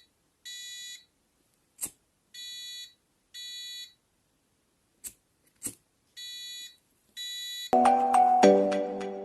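Arduino flame-alarm buzzer sounding short, high-pitched beeps of about half a second each, in pairs, with a sharp click before each pair. Louder music with plucked, mallet-like notes starts about three-quarters of the way through.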